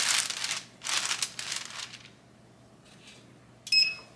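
Parchment paper rustling and crinkling as it is smoothed flat by hand over a hoodie on a heat press, in several short bursts during the first two seconds. About three and a half seconds in, a short high electronic beep.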